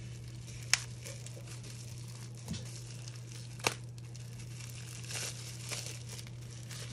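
Plastic packaging wrap crinkling as it is handled and put down, with two sharp clicks about a second and three seconds later.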